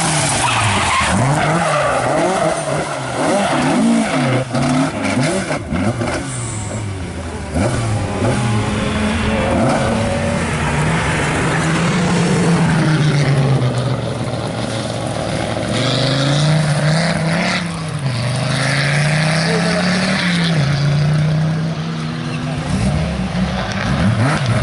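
Ford Escort Mk2 rally car's engine revving hard, its pitch rising and falling again and again through gear changes and lifts off the throttle as it works through a hairpin.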